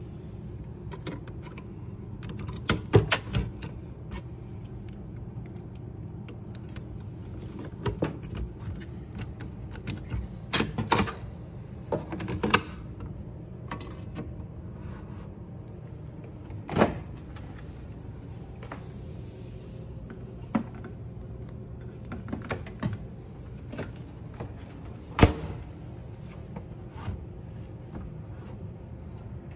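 Scattered clicks and knocks over a steady low hum. There is a cluster of sharp knocks a few seconds in, more around the middle, and the single loudest knock about 25 seconds in.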